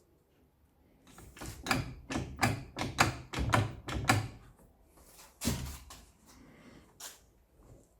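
A quick run of about a dozen sharp knocks and clunks over some three seconds, then two more, a second or so apart.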